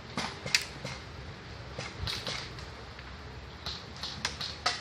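Scattered sharp airsoft gun shots, single snapping clicks a second or so apart, with brief rustling in between.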